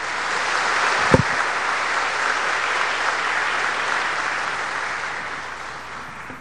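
Audience applauding, swelling within the first second, holding steady, then fading out over the last couple of seconds. A single low thump sounds about a second in.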